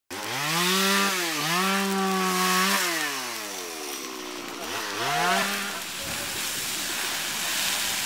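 A small high-revving engine run up to full throttle. Its pitch climbs quickly and holds, dips once about a second in, holds again, then winds down near the three-second mark. It is revved up again briefly around five seconds in, then gives way to a rough, rumbling noise without a clear pitch.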